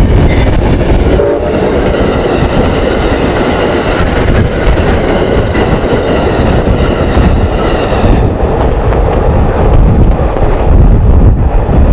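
Amtrak passenger train, a GE P42DC Genesis diesel locomotive hauling Superliner bilevel cars, passing a grade crossing at speed: a loud steady rumble with wheel clatter on the rails. A set of steady high tones rides over it from about two to eight seconds in.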